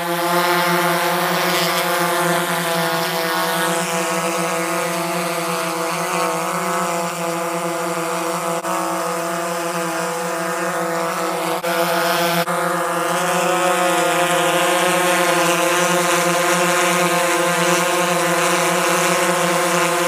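Small quadcopter drone's propellers whining steadily as it hovers close by: a constant hum of several fixed tones over a rushing hiss, shifting slightly as the drone moves.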